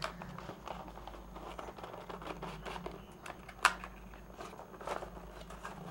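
Faint rustling and crinkling of packaging as a laptop charger is handled and taken out of its box, with light clicks and two sharper knocks, at about three and a half and five seconds in.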